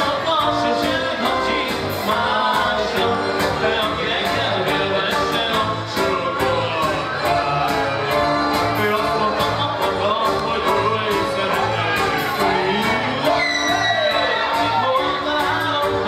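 Live dance band playing a medley: keyboard-led music with a steady beat and a singing voice.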